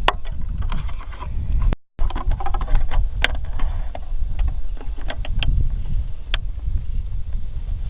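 A steady low rumble with many short sharp clicks and rustles over it, broken by a brief cut to silence about two seconds in.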